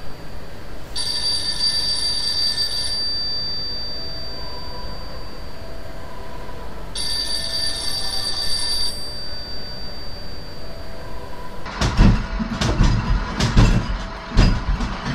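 Old telephone's bell ringing twice, each ring about two seconds long. Near the end, a run of loud, irregular knocks and rattles.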